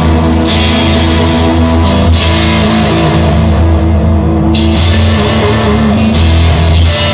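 Instrumental rock music: guitar and bass over a drum kit, with no singing.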